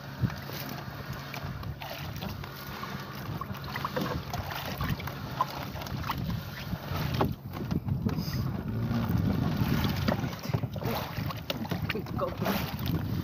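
Gillnet being hauled in by hand over the side of a small wooden boat at sea: scattered clicks, knocks and wet rustling of net and floats against the hull, over a low steady hum and wind on the microphone.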